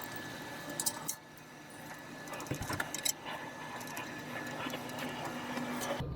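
Scattered metallic clicks and rattles of hand tools and cable ends being handled as battery cables are fastened to a remote terminal post, with a faint steady hum behind them; the background changes abruptly near the end.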